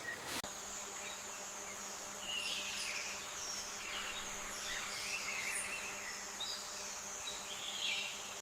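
Outdoor nature ambience: a steady high-pitched insect drone with scattered short bird chirps over it.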